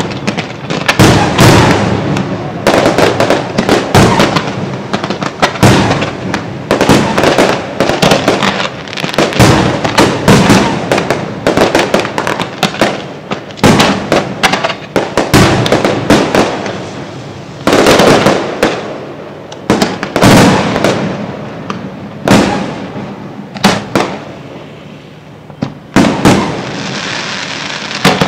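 Fireworks display: aerial shells bursting in rapid, overlapping bangs, thinning to occasional single bangs in the last several seconds, with a steady hiss near the end.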